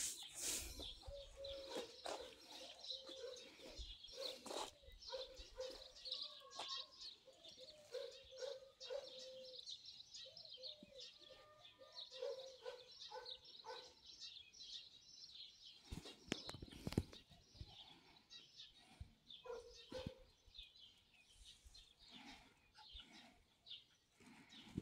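Faint small-bird chirping and twittering throughout, with a run of short, repeated mid-pitched calls through the first half and a few low handling knocks about two-thirds of the way in.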